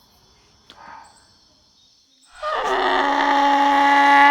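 Goose call: one long, steady-pitched honk starting about two seconds in, preceded by a faint short sound about a second in.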